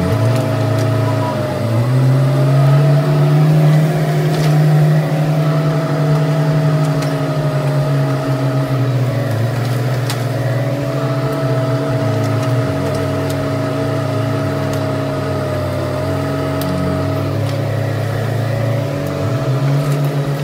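Bobcat E10 mini excavator's diesel engine and hydraulics running steadily while it digs, the pitch sagging briefly under load about two seconds in and again later on.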